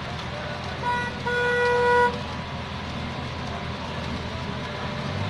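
A vehicle horn honks twice over steady street traffic and engine noise: a short toot about a second in, then a longer one.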